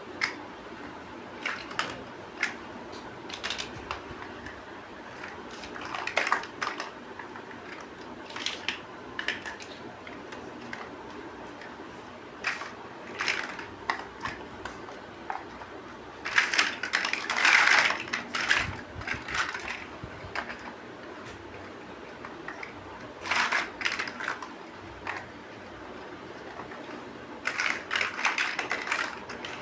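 Plastic building bricks clicking and snapping together by hand, irregular single clicks with denser clusters of clattering pieces a little past halfway and again near the end.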